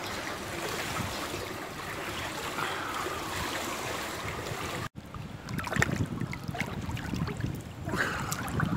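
Swimming-pool water lapping and sloshing close to the microphone, which is held just above the surface: a steady wash at first, then, after a brief cut about halfway, choppier splashing with small irregular knocks.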